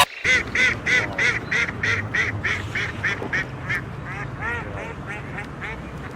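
A duck quacking in one long run of quacks, about four a second at first, loud at the start and growing softer and slower.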